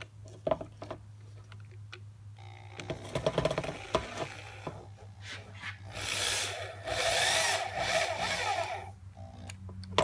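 Power drill with a keyed chuck driving a number 6 wood screw through PVC pipe into plywood. The motor runs in two spells, the second longer and louder, its whine wavering under load as the screw bites.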